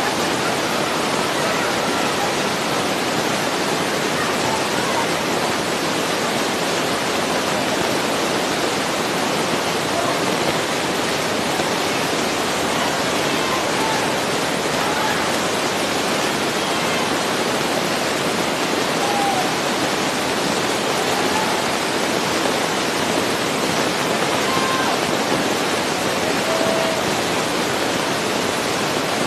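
A steady, even hiss that stays at one level without rhythm or change, with a few faint short calls now and then.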